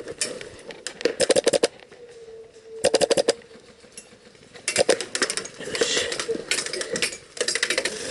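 Airsoft guns firing several rapid bursts of sharp pops, each burst about half a second long, with short gaps between them.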